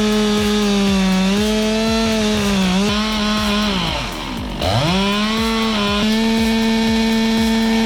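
Two-stroke chainsaw running at high revs. About four seconds in, the engine speed drops sharply, then climbs straight back up to full speed.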